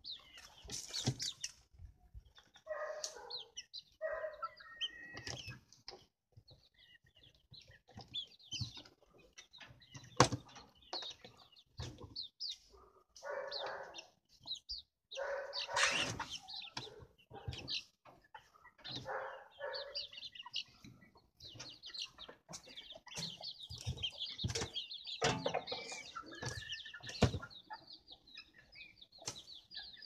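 Caged vulture feeding and moving about in a wire-mesh cage: wings flapping, with scattered knocks and scuffs against the cage floor and frame, and short calls now and then.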